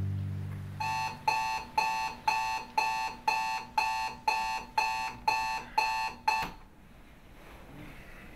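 Digital bedside alarm clock beeping, about two beeps a second, a dozen in all, then cutting off suddenly. Before the beeping starts, the last electric-guitar chord of a rock song fades out.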